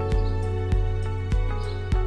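Background music: sustained, soft chords over a steady beat of about one and a half strokes a second.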